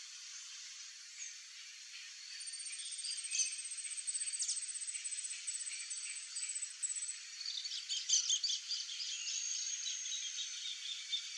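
Outdoor bird and insect sounds: a high, rapid pulsing trill from about two seconds in until about seven seconds, then quick, busy bird chirps.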